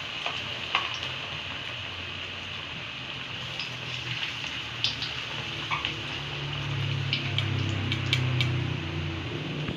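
Pieces of steamed horn plantain sizzling steadily in hot oil in a wok, with sharp clicks of metal tongs against the pan and the fruit as the pieces are turned. A low hum swells in the last few seconds.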